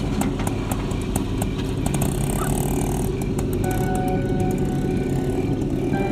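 Auto-rickshaw engine running with a steady low rumble, under background music.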